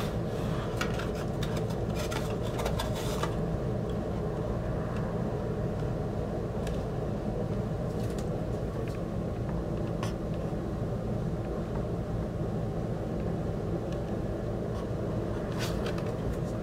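A rigid cardboard box being opened and handled: a quick run of rustles and taps for about the first three seconds, then a few soft, scattered taps. A steady low hum runs underneath throughout and is the loudest sound.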